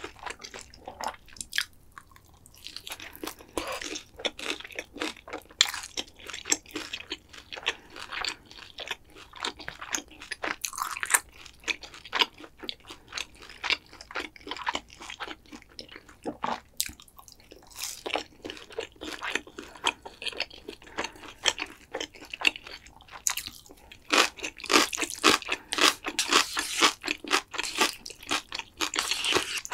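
Close-miked crunching and chewing of crispy battered fried pork (tangsuyuk), a dense run of crackling bites and chews that grows louder and busier in the last few seconds.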